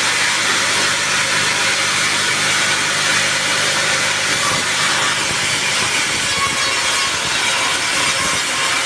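Sawmill saw cutting steadily through a teak log.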